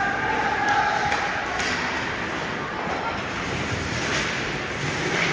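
Ice hockey game sounds in a rink: a steady murmur of voices with a held shout near the start and a few sharp knocks during play.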